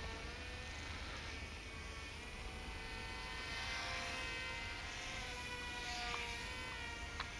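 Twin small electric motors and propellers of a Silverlit X-Twin Turbo-Fury RC plane buzzing in flight, the pitch drifting up and down and growing louder about six seconds in. A single sharp click near the end.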